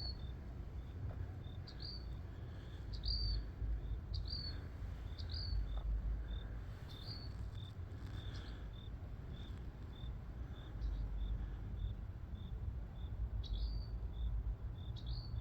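Small birds calling back and forth with short, high, repeated calls, a call every second or so. Behind them runs a steady series of faint high pips, about two a second.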